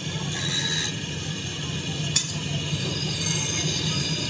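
Bench grinder motor running with a steady hum while a steel pickaxe head is ground against the wheel, giving two passes of hissing grind. One sharp clink of metal about two seconds in.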